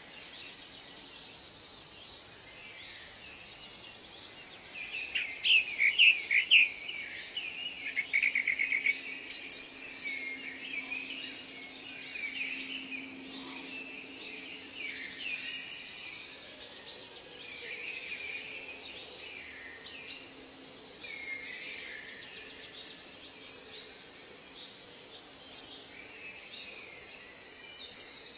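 Several birds chirping, trilling and whistling over a steady background hiss, with a dense run of loud chirps and a rapid trill about five to nine seconds in and a few sharp whistled notes near the end.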